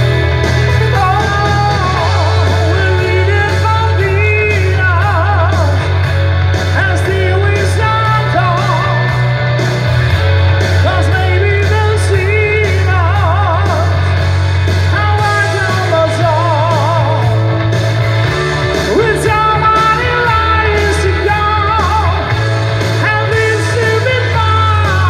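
Live rock music through a PA: a singer holding notes with a wide vibrato over electric guitar and a bass line that moves to a new note every couple of seconds.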